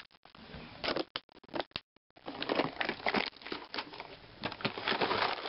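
Plastic tackle trays being handled and shuffled: a few sharp clicks about a second in, then a run of rustling and clattering as the boxes are moved close to the camera's microphone.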